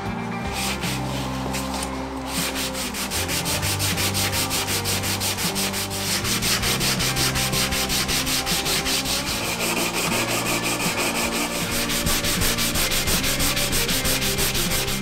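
Hand sanding block rubbed back and forth over ebony box pieces, giving a quick, even run of rasping strokes.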